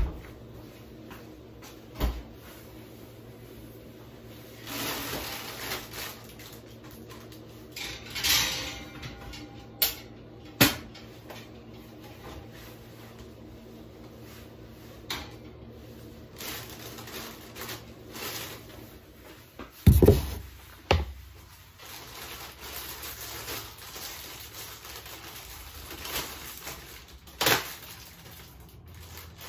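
An old refrigerator's door opened and things handled inside: scattered clicks and knocks, short bursts of plastic-bag rustling, and a heavy thump about twenty seconds in, the loudest sound, followed by a smaller knock.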